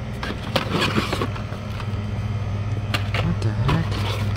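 Plastic-and-cardboard Hot Wheels blister cards rustling and clicking as a hand sorts through them in a cardboard display, over a store refrigerator's steady low hum.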